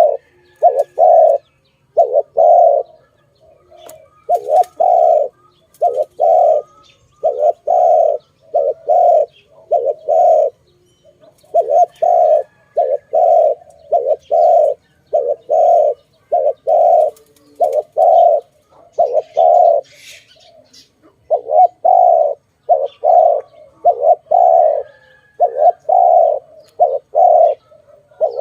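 Spotted dove cooing over and over, short coos grouped in twos and threes with brief gaps between the phrases. Faint chirps of other small birds sit behind it.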